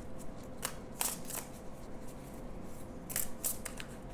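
A deck of tarot cards being handled: cards sliding and snapping against each other in a few short, scattered clicks.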